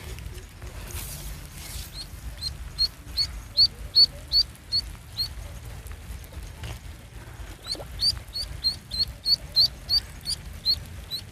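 Duckling peeping in two runs of short, high calls, about three a second, the first starting about two seconds in and the second near eight seconds; the duckling is dangled on a fishing line as live bait on the water.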